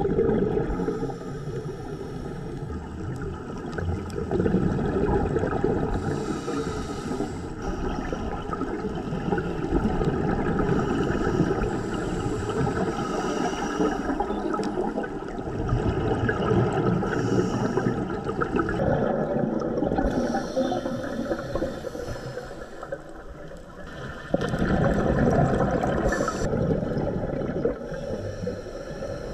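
Scuba diver's breathing through a regulator heard underwater, the exhaled bubbles gurgling and rushing in irregular surges every few seconds.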